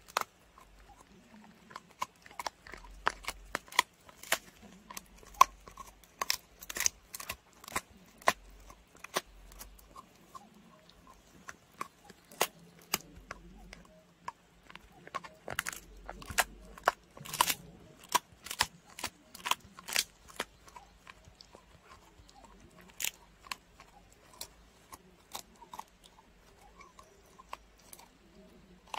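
A dog chewing and crunching on a dried pig ear: a run of sharp, irregular cracks and crunches as its teeth work through the hard ear, coming thick and fast for most of the time and more sparsely near the end.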